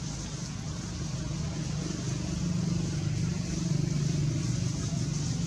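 A steady low engine drone, like a motor vehicle running, growing slightly louder in the middle, under a steady high hiss.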